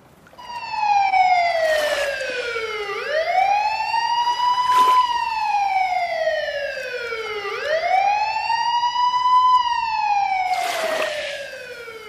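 Police car siren wailing. The tone slides slowly down, then sweeps quickly back up, repeating about two and a half times, and fades out near the end.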